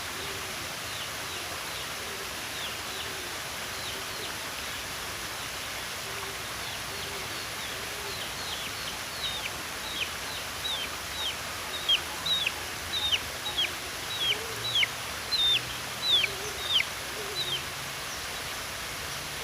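A bird calling a long series of short whistled notes, each dropping sharply in pitch. They grow louder and come about two a second, then stop near the end. Running water keeps up a steady rush beneath.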